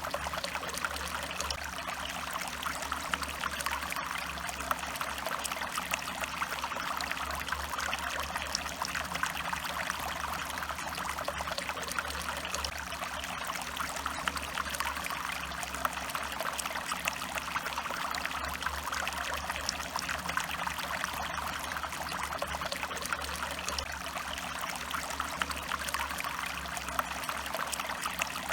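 Stream water flowing and trickling steadily, with a low steady rumble underneath.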